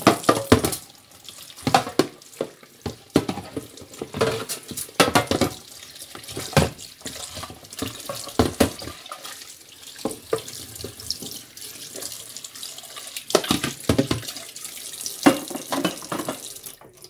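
Kitchen tap running into a stainless-steel sink, with irregular splashes and knocks as things are rinsed under the stream. The water stops just before the end.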